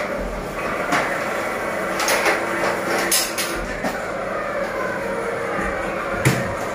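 Large-format flex banner printer running, its print-head carriage shuttling across the rail with steady machine noise. Several knocks and clacks break through, the sharpest about six seconds in.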